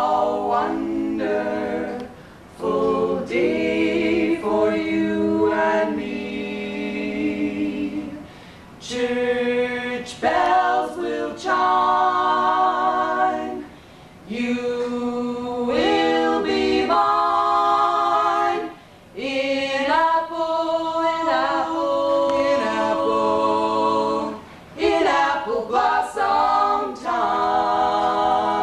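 Women's a cappella trio singing together in harmony, in phrases of a few seconds with short breaks between them.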